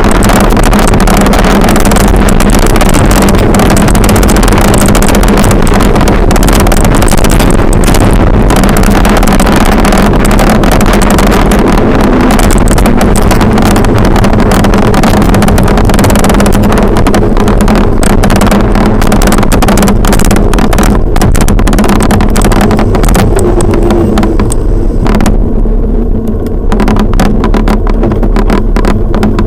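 Steady wind rush buffeting the microphone of a bike-mounted action camera on a fast road-bike descent. The high hiss thins near the end as the bike slows.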